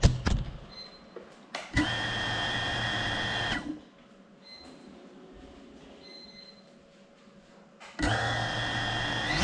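A knock as the CineLog35 cinewhoop drone comes to rest, then its motors spin at idle with a steady whine for about two seconds, stop, and spin up to idle again near the end.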